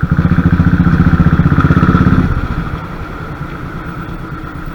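Royal Enfield motorcycle engine running under throttle, with a loud, rapid pulsing beat for about two seconds before it eases off to a quieter steady run.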